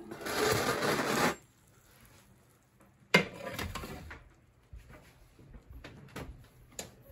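Baked pizza dragged with a pizza cutter off a steel pizza plate onto a metal pizza pan: a rough metal-and-crust scrape lasting about a second. About three seconds in comes a sharp clunk with a short rattle after it, then a few light taps.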